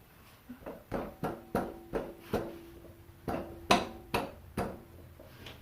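Metal being knocked or tapped, about a dozen irregular sharp strikes with a brief metallic ring, while parts are worked onto the mini bike's wheel hub.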